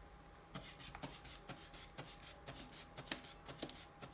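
Rubber inflation bulb of a sphygmomanometer being squeezed about twice a second to pump up the blood-pressure cuff, each squeeze giving a short high squeak and a click; the pumping starts about half a second in.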